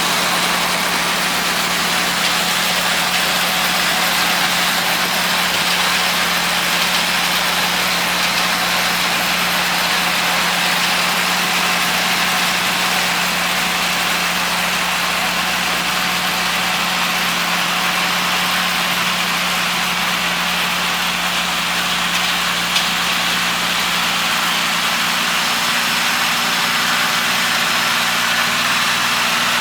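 Kubota L3200 compact tractor's diesel engine running at a steady speed, with a constant loud hiss of working machinery over it. There is one brief click about 23 seconds in.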